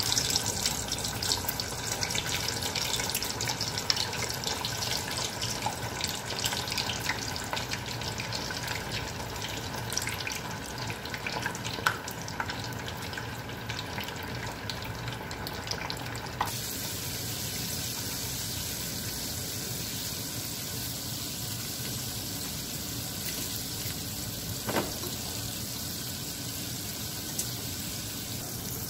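Beancurd-skin rolls deep-frying in a saucepan of hot oil, sizzling with dense crackling. About halfway through, the sound changes suddenly to a steadier, smoother hiss.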